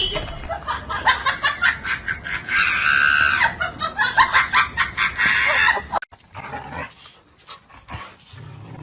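An animal making a quick series of short, sharp calls and clicks for about six seconds, then much quieter.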